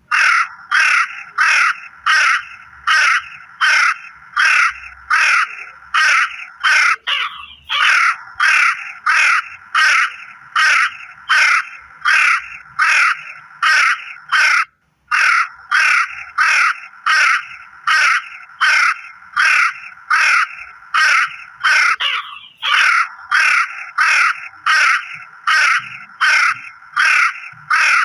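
Crow cawing over and over, harsh calls at an even pace of about two a second, with brief breaks about halfway through.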